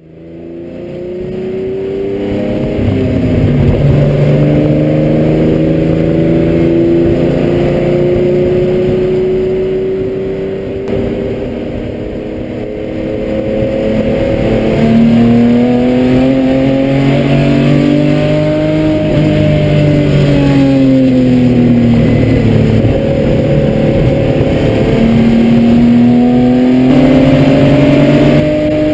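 Nissan 260Z vintage racecar's engine running hard on track, heard from the cockpit. It fades in at the start, and its pitch climbs steadily for several seconds at a time as the car accelerates, drops back twice midway, then climbs again.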